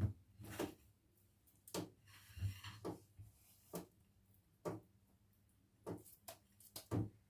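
A scattered series of light knocks and taps from handling in a kitchen, one or two at a time with short gaps between them.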